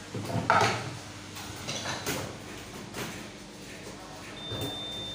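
Knocks and clunks from a Brother KE-430F bar-tack sewing machine as it is switched on, the loudest about half a second in. Near the end a steady high-pitched tone begins.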